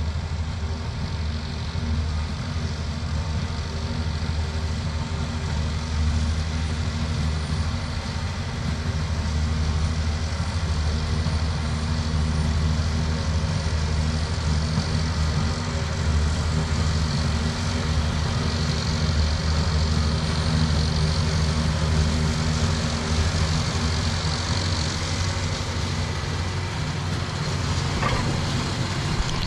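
Tractor engine idling steadily, heard close up.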